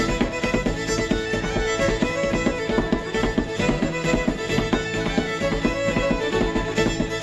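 Fiddle playing a Métis breakdown tune: a quick, steady run of short bowed notes.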